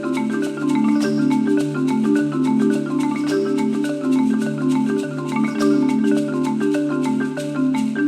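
Marimba ensemble played with mallets: fast, even streams of struck notes in a repeating pattern over a low bass that is held without a break.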